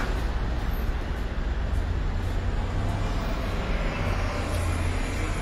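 Steady city street traffic noise: a low rumble under an even hiss, with no clear single vehicle standing out.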